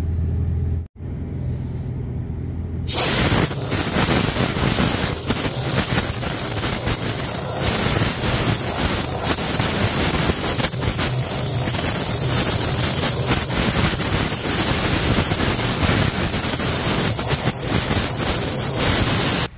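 After a low hum, a loud, steady rush of compressed air starts suddenly about three seconds in and keeps going, fluctuating as it is blown through a nozzle into the soot-clogged intake of a Cummins ISB diesel engine to clear it out.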